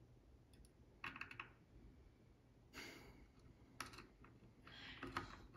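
Faint metallic clicks and scrapes of a lock pick and tension wrench working in the keyway of a Stabilit A20 padlock, in a few short bursts.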